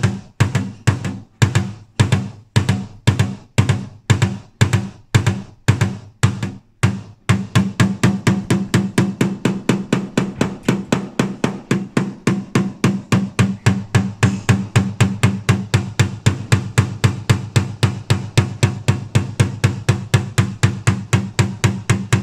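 Paintless dent repair tap-down: a small hammer striking a knockdown punch on the high spots of a steel rear fender to level them. Sharp, even taps come about two a second with short pauses for the first seven seconds, then run on without a break at about four a second.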